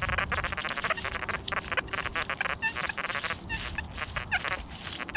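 XP Deus 1 metal detector sounding a rapid, broken run of short beeps as its small coil sweeps over ground thick with buried trash.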